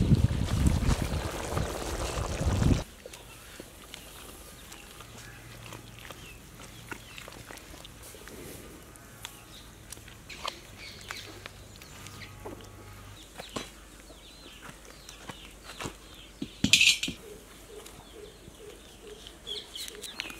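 Rural outdoor ambience of birds chirping, with hens clucking in a short run of calls near the end. A loud rushing noise fills the first three seconds and cuts off suddenly, and a brief sharp high sound comes about three-quarters of the way through.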